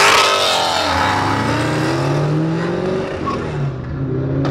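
Supercharged Corvette V8 under acceleration. The engine note falls at the start under a brief loud hiss from the blow-off valve venting, then climbs steadily, dips about three seconds in, and climbs again.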